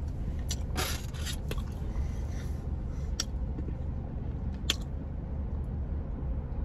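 Aluminium foil wrapper around a burger crinkling and rustling in several short bursts, the busiest about a second in, over a steady low hum.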